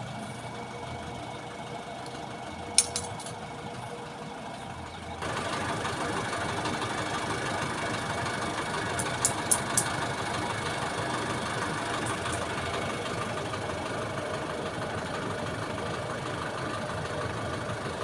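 An engine running steadily, which gets louder and fuller about five seconds in. A few sharp metallic clicks come near three seconds and again in a quick run of three around nine to ten seconds.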